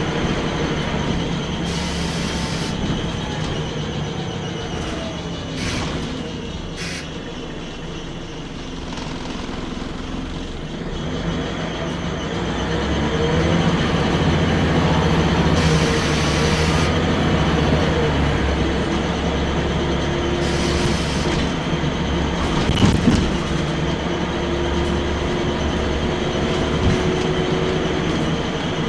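Scania L94UB single-deck bus heard from inside the passenger saloon on the move: steady engine running with road noise and a faint whine that rises and falls. It grows louder past the middle as the bus speeds up, with a brief clatter a little over twenty seconds in.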